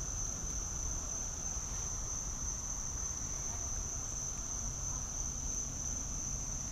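Insects trilling in a steady, high-pitched drone that doesn't break, over a faint low rumble.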